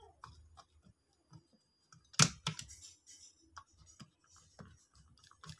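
Screwdriver turning the screw that clamps a power transistor to an aluminium heatsink: scattered small clicks and scrapes of metal on metal, the loudest about two seconds in.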